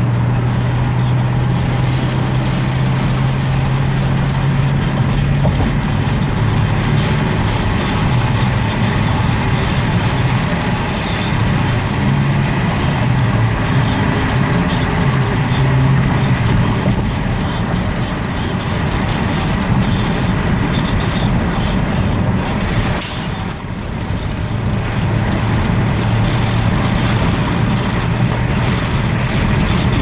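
Car engine running under way, heard from inside the cabin together with road noise. A steady low engine hum wavers and breaks up in the middle, then settles again near the end. A short hiss comes about three-quarters of the way through.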